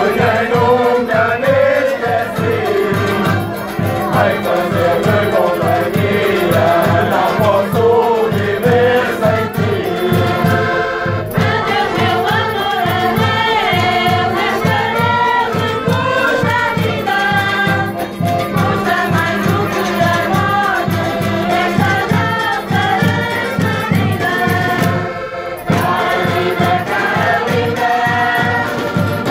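Portuguese rusga folk band playing live: diatonic button accordions carry the tune over a steady beat on a bass drum and a snare drum, and a group sings along in chorus.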